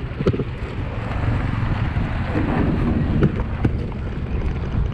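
Wind buffeting the camera microphone of a moving bicycle as a steady low rumble, with a few short sharp knocks as the bicycle rides over a rough, unfinished road.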